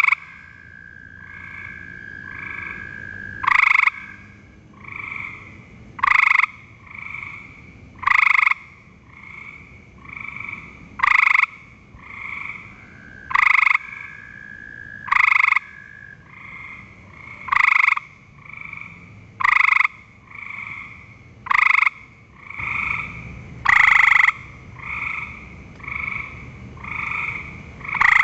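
Gray treefrog (Hyla versicolor) calling: a loud, short musical trill about half a second long, repeated every two to three seconds, with fainter trills of other frogs in between. A long, steady, higher trill runs under the first few seconds and again around the middle.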